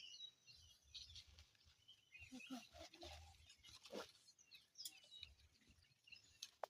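Near silence with faint scattered bird chirps and a few small clicks.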